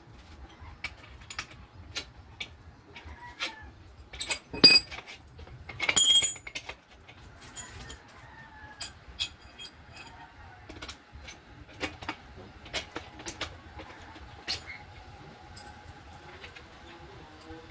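Scattered clicks, taps and metallic clinks of hand tools and metal parts being handled, with two louder ringing clinks about five and six seconds in.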